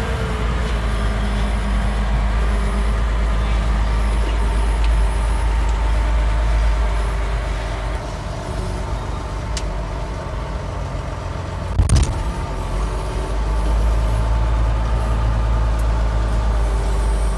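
Tractor engine running steadily under load as the tractor drives, heard from inside the cab; the engine eases off a little in the middle and picks up again. A single loud clunk about twelve seconds in.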